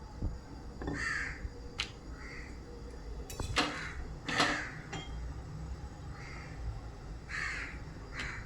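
Crows cawing outside, about seven short harsh caws spread irregularly, with a few sharp clicks in between over a low steady rumble.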